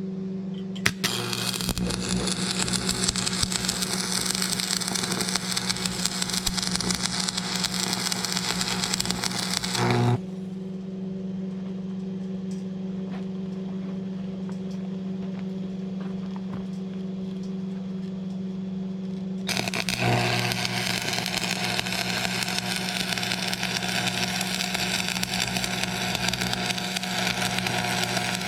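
Electric arc welding a steel brake rotor onto a steel car rim: two long runs of crackling arc, the first stopping about ten seconds in and the second starting about twenty seconds in. The welder's transformer hums steadily throughout, including between the welds.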